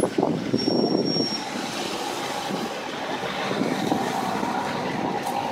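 City street traffic: a steady mixed noise of vehicles going by, more uneven in the first second or so and then settling to an even hum.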